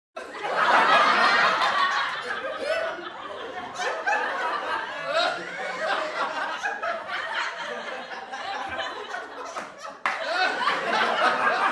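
People laughing, with chuckles and snickers mixed in. It starts abruptly out of silence, is loudest in the first couple of seconds, then eases off. A fresh burst of laughter cuts in suddenly about ten seconds in.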